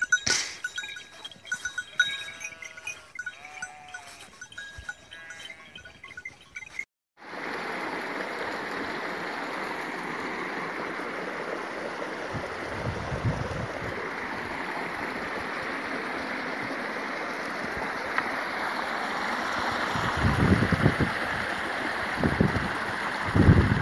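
A small mountain stream running over rock, a steady rush of water, with a few low thumps near the end. Before it, in the first few seconds, sheep bleat a few times over steady ringing tones.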